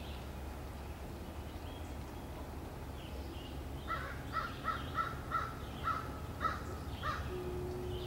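A bird calling in a quick run of about nine calls, roughly three a second, from about halfway through, with fainter small-bird chirps throughout.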